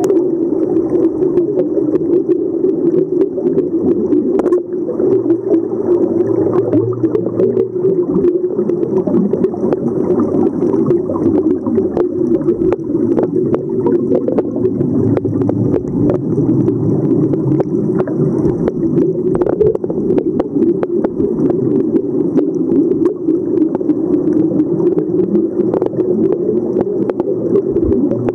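Steady, muffled underwater noise picked up by a camera in a dive housing, with the gurgle of scuba regulator exhaust bubbles and many faint clicks.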